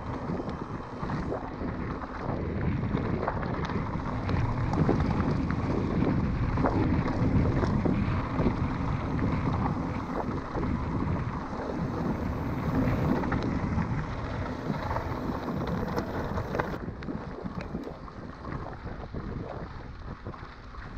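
Wind buffeting the microphone of a moving mountain bike, over the crunch and rattle of its tyres and frame on a rough dirt trail.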